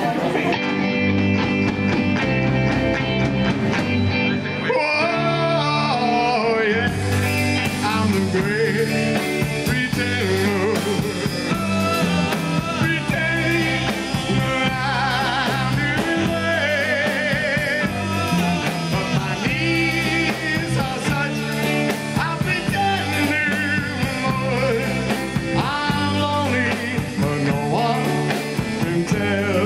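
Live rock and roll band playing: electric guitars, bass guitar and drum kit, with singing. The cymbals come in about seven seconds in.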